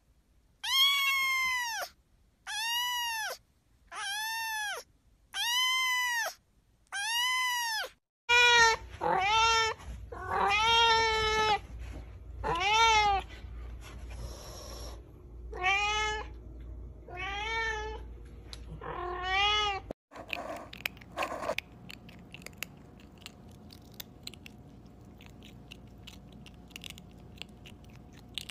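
Kitten and cat meowing. First come five high kitten meows about a second and a half apart, each rising and then falling in pitch. Then another cat meows over and over for about twelve seconds, and the last several seconds are much quieter, with faint clicks.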